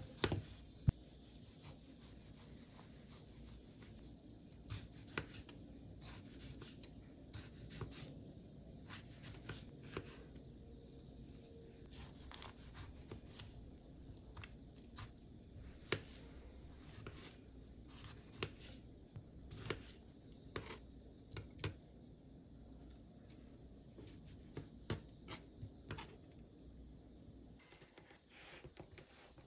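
Insects trilling steadily and high-pitched in the background, with scattered light clicks and taps at irregular intervals throughout.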